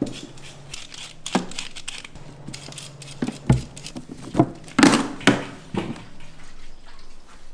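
Kitchen work: a string of irregular knocks and clinks of utensils and dishes, about half a dozen louder ones, the loudest cluster about five seconds in.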